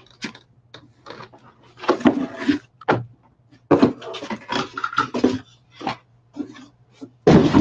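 Cardboard shipping box being handled: its flaps scrape and rustle in a series of short, uneven bursts, with a heavier thump near the end as something is set down.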